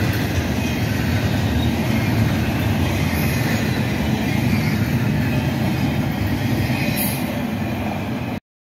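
Double-stack intermodal freight cars rolling past at speed: a steady, loud rumble and rattle of steel wheels on the rails, with faint high squeals about three and seven seconds in. The sound cuts off abruptly near the end.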